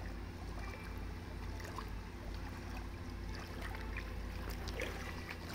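Steady rush of shallow river water over a low rumble, with a few faint splashes and ticks late on as a cast net is hauled in by its rope.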